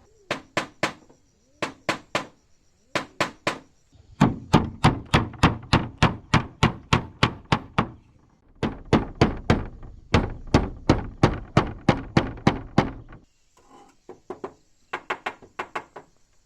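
Hammer blows, likely driving nails into wood. It opens with three quick sets of three strikes, then two long runs of steady hammering at about four blows a second, and ends with a few lighter taps.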